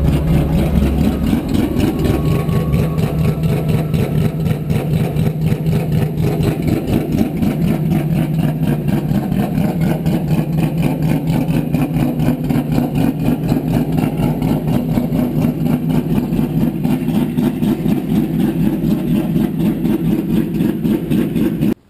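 Custom peripheral-ported Mazda four-rotor Wankel race engine in an RX-7, running at idle with a rapid, even pulsing. It cuts off suddenly near the end.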